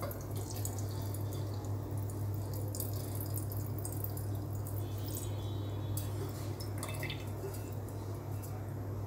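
Thin stream of red beet-dye liquid poured from a pot into a glass jar, trickling and splashing, thinning out about seven seconds in, over a steady low hum.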